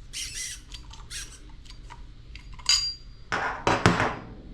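Small metal parts of a pressure-washer unloader valve clinking and scraping as they are handled and fitted together, with a brief metallic ring partway through and the loudest clatter a little after the middle.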